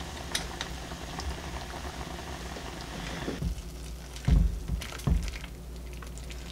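Spicy tteokbokki sauce bubbling at a boil in a pot, a steady crackly simmer that stops after about three seconds. Then two loud dull thumps as the pot is tipped and the rice cakes are pushed out into a bowl with chopsticks.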